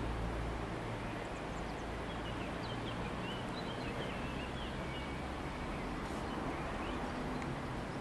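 Outdoor ambience: a steady hiss-like noise with a low rumble, and a few faint, short bird chirps about three to five seconds in.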